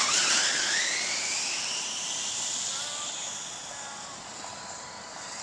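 Inflatable snow tube sliding down a packed-snow run with a rider lying on it: a hissing swoosh that fades steadily as the tube moves away.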